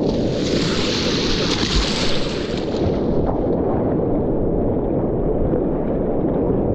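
Whitewater rapids rushing and splashing close by at water level, a loud steady roar that turns duller after about two and a half seconds.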